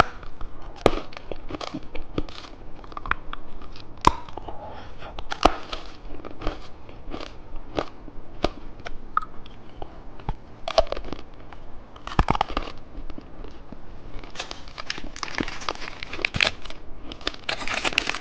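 Close-miked biting and crunching of a hard candy lollipop, in sharp irregular cracks and crunches. Near the end, plastic wrapper crinkling takes over.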